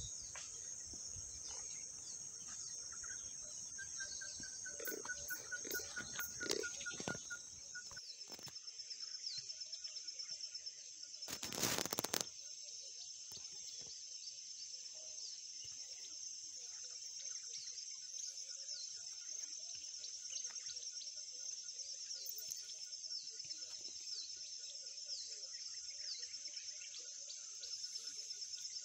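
Outdoor insect chorus: a steady high-pitched trilling that runs without a break. A few soft knocks in the first several seconds and a brief loud rush of noise about twelve seconds in.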